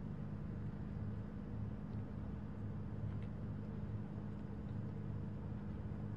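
A steady low mechanical hum, like an idling engine or generator, holding the same pitch throughout, over faint outdoor background noise.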